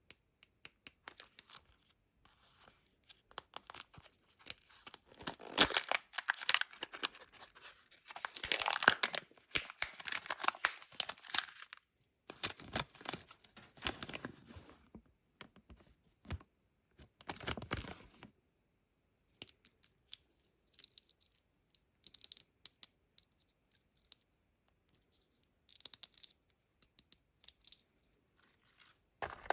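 Foil wrapper of a Kinder Joy surprise egg being torn open and crinkled by hand, with sharp clicks of plastic handling. Loudest in the first half, then sparser, quieter rustles and clicks.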